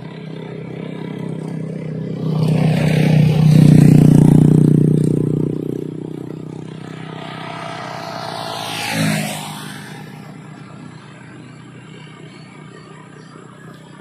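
Motor traffic passing close by on a road. A motorcycle engine swells and fades between about two and six seconds in. Then a car whooshes past about nine seconds in, its pitch dropping sharply as it goes by.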